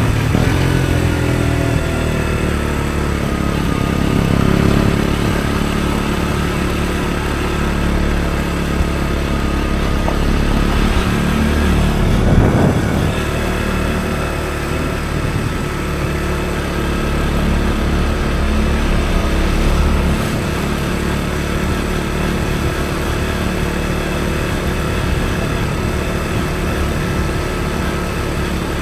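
KTM Duke 125's single-cylinder four-stroke engine running through an Akrapovic exhaust while riding, the revs dropping at the start and then holding fairly steady with small rises and falls. A brief louder rush of noise comes near the middle.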